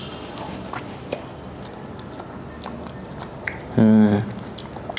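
A person chewing a soft chhena sponge sweet with faint mouth clicks, and a short hummed "mm" about four seconds in.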